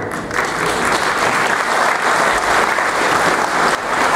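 Audience applauding, the clapping rising sharply just after the start and dipping briefly near the end.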